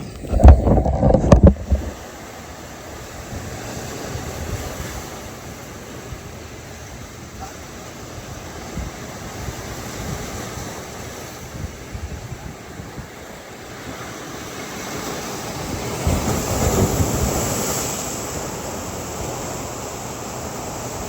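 Ocean surf washing in steadily, with wind buffeting the microphone in loud gusts in the first two seconds and a wave swelling louder about three quarters of the way through.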